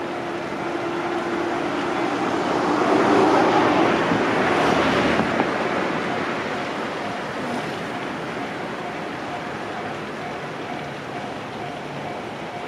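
A train passing over a level crossing: a swell of rushing wheel and rail noise that builds, peaks about four seconds in with a single sharp click, and slowly fades. The crossing's warning bell keeps ringing at an even beat throughout.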